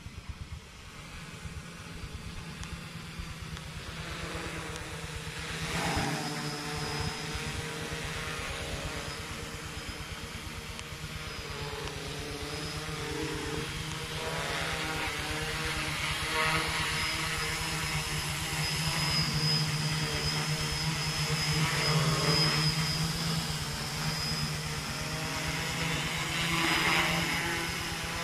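Homemade F450 quadcopter's electric motors and propellers buzzing steadily as it hovers, growing louder as it comes down low and close.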